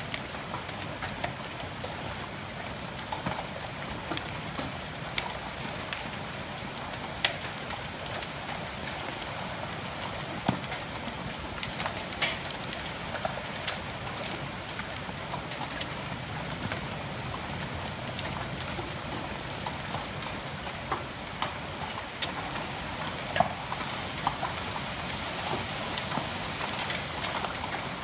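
Heavy rain pouring down steadily, with scattered sharp taps of drops striking a nearby surface.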